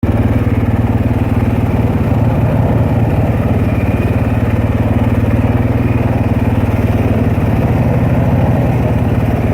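Honda 400EX ATV's single-cylinder four-stroke engine running steadily with an even, rapid pulse.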